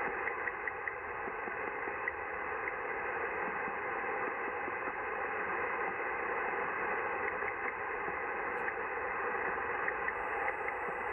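Shortwave radio receiver audio: steady hiss and static with faint, irregular ticks and clicks running through it. The uploader calls it a strange ticking/clicking signal of unknown origin.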